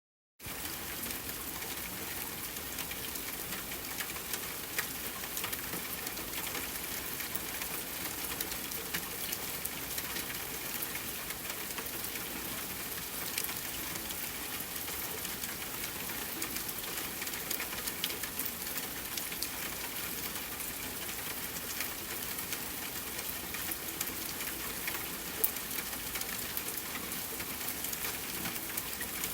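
Steady soft rain: an even hiss thick with tiny drop ticks. It starts about half a second in, and a single louder drop stands out near the end.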